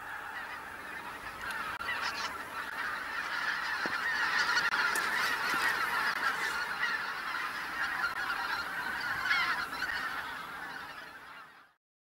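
A large flock of greater white-fronted geese calling in flight, a dense chorus of many overlapping honking and yelping calls. The chorus swells toward the middle, fades and then cuts off sharply just before the end.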